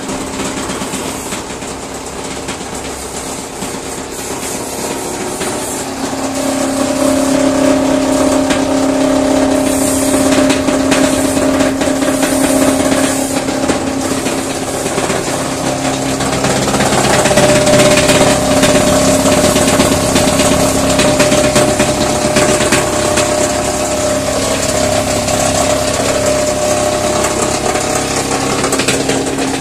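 High-speed plastic crusher with rotary and stationary blades running and chopping waste plastic fed into its hopper: a loud, steady machine hum under a continuous rapid clatter of plastic being cut. The hum grows louder about six seconds in.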